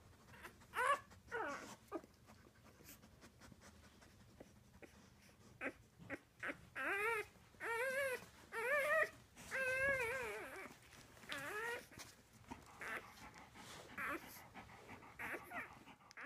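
Black Labrador whimpering: short, wavering high cries, a pair about a second in, then a run of four or five from about six to ten seconds in and one more just after.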